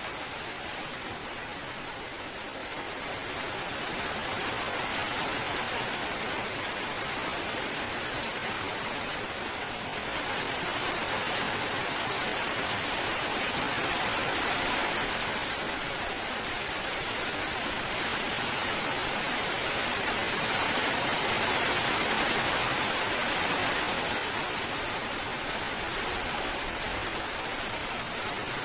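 Steady heavy rain, a dense even hiss that swells and eases gently over the stretch.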